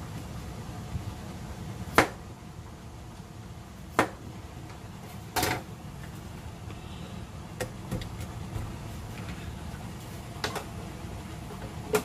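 Raw potato chunks dropped by hand into a plastic blender jar already holding onion pieces. About seven sharp knocks come at irregular intervals, the loudest about two seconds in and near the end.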